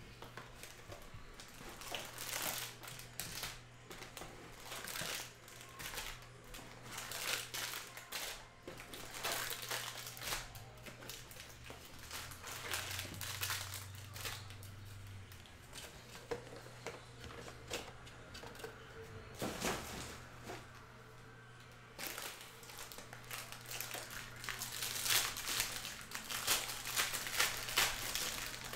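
Foil trading-card pack wrappers being torn open and crinkled, in irregular rustling bursts throughout.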